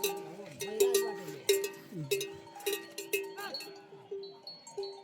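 Livestock bells clanking irregularly, several strikes a second, each ringing briefly on the same tone. Low sliding calls sound underneath.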